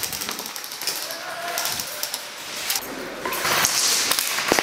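Airsoft electric rifles firing rapid clattering bursts, with a sharp crack near the end.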